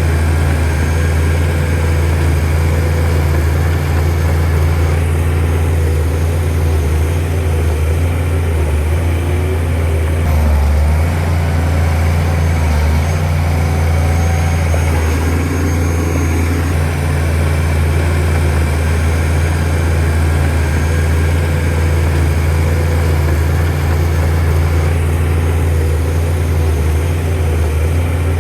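Shantui DH17C2 bulldozer's diesel engine running with a steady, deep drone.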